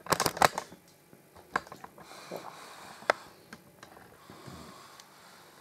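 Small knocks and clicks of movement and handling: a quick cluster at the start, then single sharp clicks about one and a half and three seconds in, over faint room noise.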